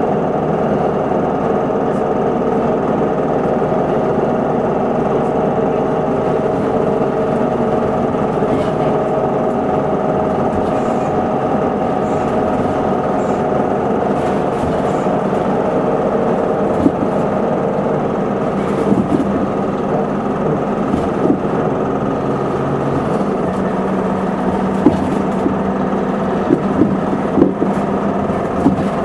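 Isuzu Erga city bus's diesel engine running steadily, heard from inside the cabin. A few short knocks and rattles come in the last third.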